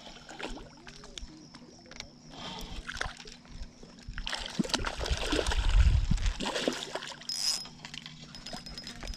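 Hooked trout splashing and thrashing at the water's surface as it is reeled in, loudest a little past halfway through.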